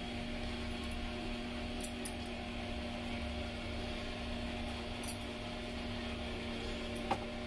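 A steady electrical hum, with two faint short clicks, one about two seconds in and one near the end.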